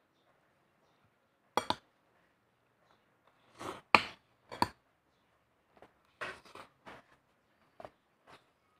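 Metal spoon and fork clinking and scraping against a plate during eating: a string of separate sharp clinks, loudest about a second and a half in and around four seconds, with a quicker cluster of them a little past the middle.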